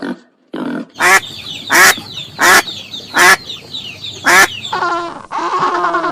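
Domestic waterfowl calling: five loud honking calls about three-quarters of a second apart. Near the end a different bird's faster run of calls takes over.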